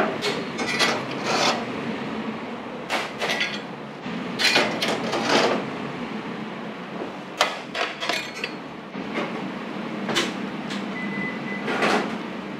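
Metal tongs and baking trays clattering in a run of sharp knocks and scrapes as freshly baked rolls are taken out of a convection oven, over a steady low hum.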